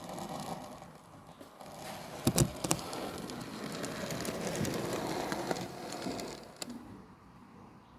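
OO9 model train running along the layout's track, a rattling run that swells and then fades over a few seconds. A few sharp knocks come about two seconds in.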